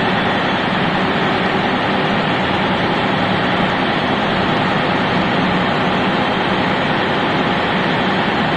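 Steady, loud drone of running machinery in a ship's engine room, with a low hum through it.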